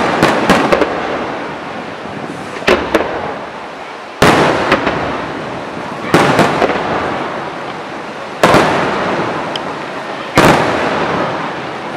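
Aerial firework shells bursting in a loud bang about every two seconds, each bang followed by crackling and a fading rumble.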